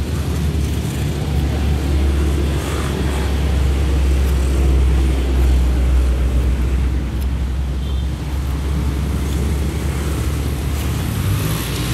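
Steady low rumble of a running motor vehicle engine, which fades away shortly before the end.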